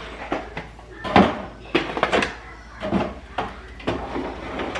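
Drink bottles and containers knocking and clacking as they are set onto refrigerator shelves and moved about: a string of short, sharp knocks, about seven in a few seconds.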